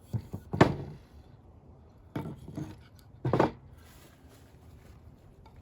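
Small metal pieces clinking and knocking together several times as a keychain ferro rod and Swiss Army knife are handled, the loudest clink about half a second in.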